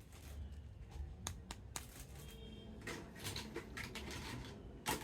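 Light clicks and rustling from a toy and its plastic packaging being handled, with one sharper click near the end.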